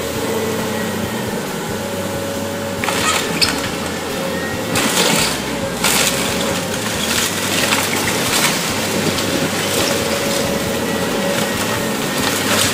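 Volvo EC290B excavator running under load, its diesel engine and hydraulics giving a steady drone with a faint whine, while its grapple tears apart a wooden shed. Boards and debris crack and crash several times, the sharpest about three, five and six seconds in.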